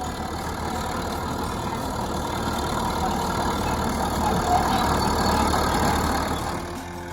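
Caterpillar D7 bulldozer's diesel engine running, growing louder and then dropping off sharply near the end.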